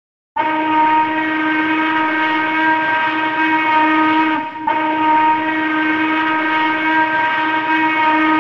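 Steam locomotive whistle sounding two long blasts with a brief break in between, the second ending with an echoing fade.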